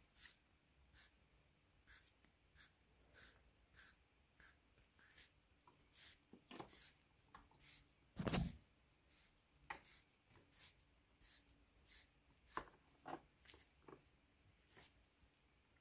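Faint short scraping strokes of hand work, about one or two a second, with a single louder knock about eight seconds in.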